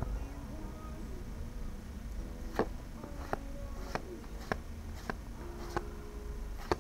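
Pokémon trading cards being flipped through one at a time: a crisp card snap roughly every two-thirds of a second, starting about two and a half seconds in.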